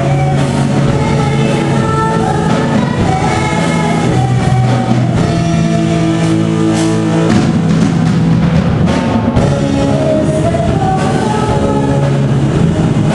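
Live amateur band playing: a woman singing lead over electric guitar and a drum kit, recorded on a camcorder in the room.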